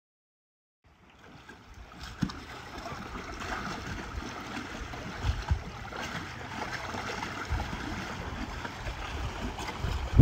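Outdoor waterside ambience starting after about a second of silence: water moving against a seawall, with gusts of wind buffeting the phone microphone in a few low thumps and a heavier rumble near the end.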